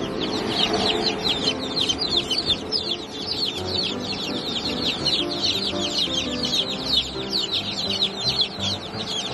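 A crowd of baby chicks peeping together: a dense, unbroken chorus of high, short, falling cheeps.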